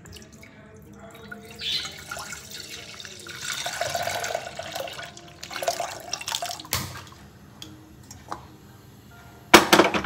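Milk pouring from a plastic packet into a stainless steel saucepan, splashing and gurgling in the pan. Near the end there is a short loud knock.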